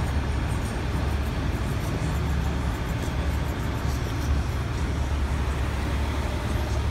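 Steady low rumble of idling vehicle engines and street traffic, with no siren sounding.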